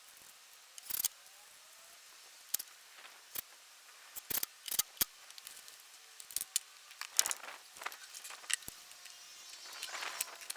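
A series of sharp clicks and knocks at irregular intervals, about a dozen in all, some in quick pairs, as of hard objects being handled.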